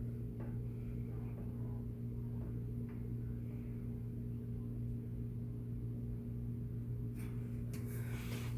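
Whirlpool top-load washer running in its spin cycle: a steady motor hum with no grinding noise, a few faint clicks near the end.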